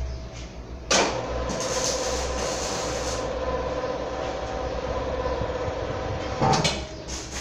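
A large steel pipe section is moved on its rim across a concrete floor. It clanks down about a second in, then runs as a steady rumble with a metallic ring, and a second clank comes near the end.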